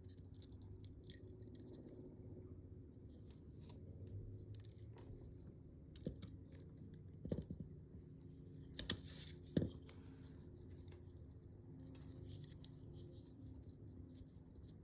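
Faint metallic clicks and light scrapes from padlock parts and small tools being handled during disassembly, with a few sharper ticks in the middle.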